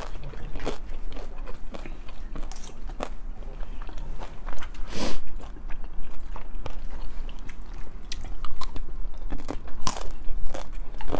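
Mouth sounds of two people eating tteokbokki: chewing, biting and slurping close to the microphone, with irregular clicks of chopsticks and a fork against the pan.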